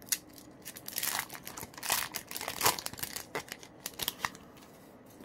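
Foil Yu-Gi-Oh! booster pack wrapper crinkling and tearing as it is ripped open by hand: a rapid run of sharp crackles that stops about four seconds in.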